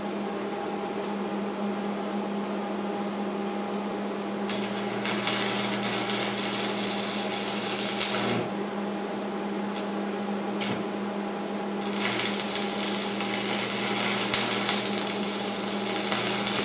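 Stick arc welding on 1/8 inch steel bar: two runs of arc crackle, the first about four seconds long and the second about five, with a couple of brief arc strikes between them. A steady low hum runs underneath.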